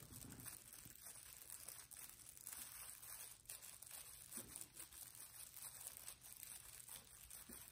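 Near silence: room tone with faint rustling.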